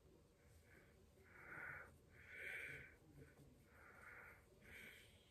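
Faint breathing through the open mouth close to the microphone, a hissy breath roughly every second.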